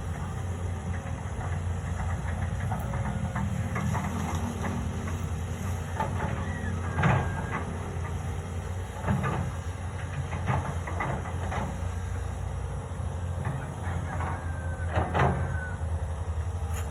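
Doosan excavator's diesel engine running steadily, with a few sharp metallic clanks and brief squeals from the machine's working parts.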